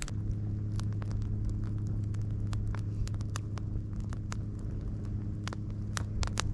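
Wood campfire crackling and popping with scattered sharp snaps, over a steady low hum that starts and stops abruptly.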